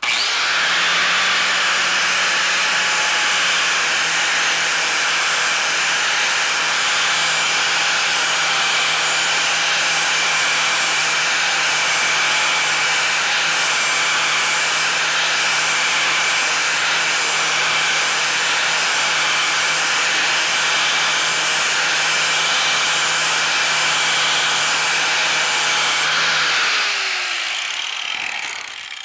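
Corded angle grinder with an abrasive disc grinding the cutting edge of a steel lawn mower blade to sharpen it, running steadily at full speed. Near the end it is switched off and its pitch falls as it winds down.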